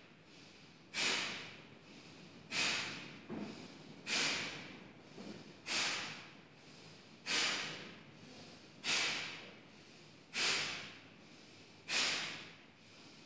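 Kapalbhati breathing: short, sharp exhalations forced out through the nose by the abdominals, eight in a slow, even rhythm about one every second and a half, each starting abruptly and trailing off.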